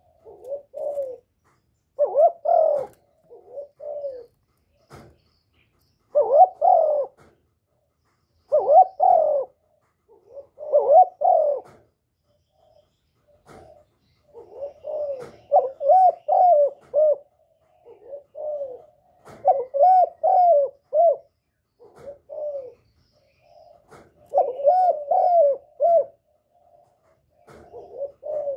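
Spotted dove (cu gáy, cu cườm) giving its cooing song: a series of short phrases of low, rounded coo notes that rise and fall in pitch, repeated every couple of seconds with short pauses between.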